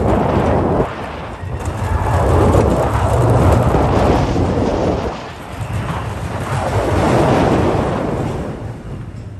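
Loud wind rushing over the microphone, swelling and easing three times.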